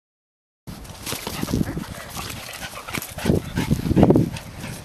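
A border collie vocalising in play while chasing a football, beginning after a short silence, with its two loudest calls about three and four seconds in.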